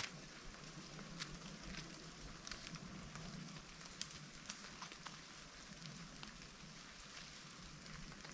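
Faint crackling with scattered light ticks from thick three-strand hemp rope being worked by hand.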